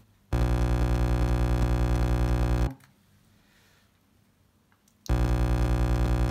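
Loud, steady, low-pitched electrical buzz with a fast flutter, in two bursts of about two and a half seconds each, the first starting just after the beginning and the second about five seconds in.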